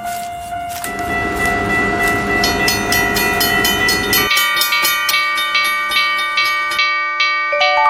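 Train sound effects: held horn-like tones that change pitch several times over a running rumble, which stops a little after four seconds, with a rapid, even clatter of clicks from about two and a half seconds in.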